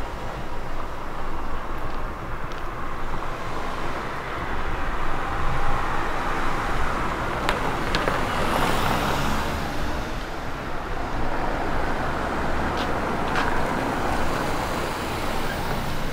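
Street traffic: a car drives past, its noise swelling to a peak about halfway through, over steady street ambience with a few short clicks.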